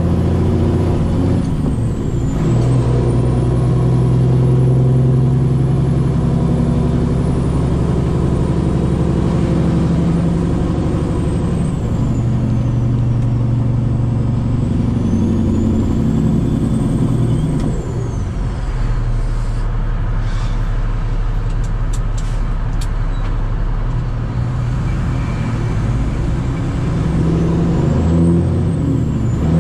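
Cummins ISX15 diesel engine of a Peterbilt 389 semi truck running on the road, its engine note shifting several times as the revs change. A few sharp clicks sound about two-thirds of the way through.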